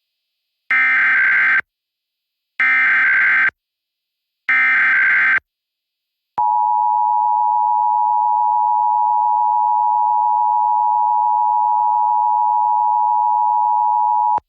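Emergency Alert System signal opening a statewide Required Monthly Test. Three short bursts of digital header tones, about a second each, are followed by the two-tone attention signal, a loud steady tone held for about eight seconds.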